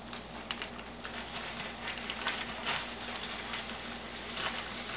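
Flour-coated chicken thighs frying in hot vegetable oil in an electric frying pan: a steady high sizzle with crackles and pops, growing louder about a second in.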